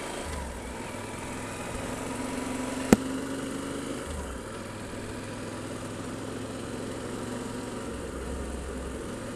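Motorcycle engine running steadily under way, heard from a helmet camera, its pitch rising slightly and then dropping about four seconds in. A single sharp click about three seconds in is the loudest sound.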